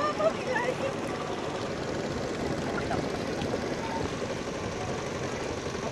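Steady hubbub of many people talking and calling, with a few raised voices in the first second.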